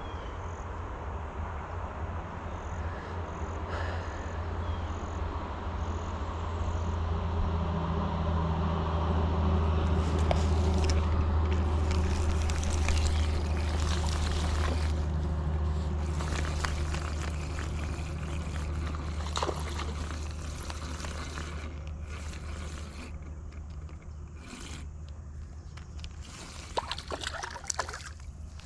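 A low engine drone with a steady pitch swells and fades over about twenty seconds, loudest around ten to fifteen seconds in. Over its second half come scrapes and clicks of the rod and reel being handled, and a few light splashes at the water's edge near the end.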